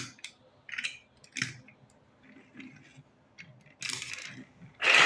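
Plastic building-block pieces clicking as they are handled and pressed together, several separate clicks, then a longer, louder rattle of loose pieces near the end.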